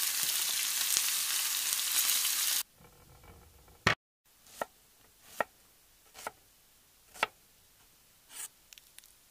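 Beef steak sizzling hard in butter in a pan, cut off sharply about two and a half seconds in. After that, a knife dices a red onion on a wooden cutting board: five quieter cuts a little under a second apart.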